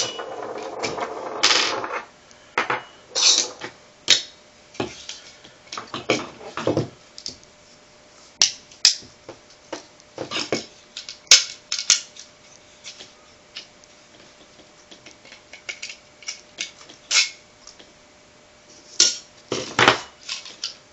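Small metal and polymer parts of a Beretta PX4 pistol frame clicking, tapping and scraping as they are pushed and handled during disassembly, in irregular bursts with a longer scrape in the first couple of seconds.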